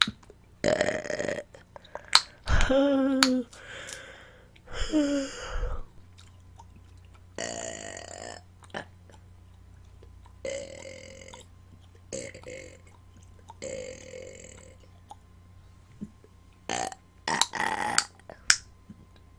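A woman burping repeatedly, about eight burps of varied length, some deep with a pitch that drops. Short sharp clicks come between them.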